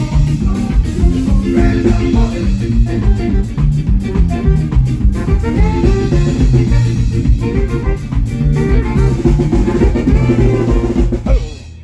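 Ska band playing live during a sound check: drum kit with a steady beat and hi-hat, bass and guitar, ending abruptly shortly before the end.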